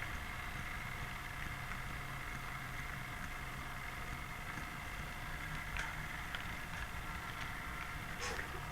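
Model train running on its layout: a steady motor hum and rumble of wheels on track, with a few short clicks over rail joints from about six seconds in.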